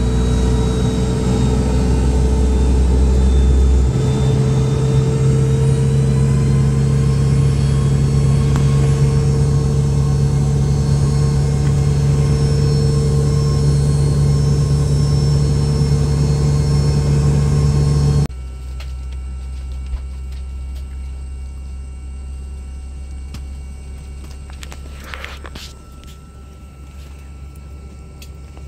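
Airliner cabin noise: a loud, steady jet-engine and airflow drone with low steady tones, which shifts in pitch a few seconds in. About two-thirds of the way through it drops suddenly to a much quieter steady cabin hum.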